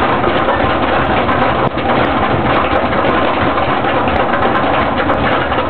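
Roller coaster running with a loud, steady mechanical rumble, dipping briefly about a second and a half in.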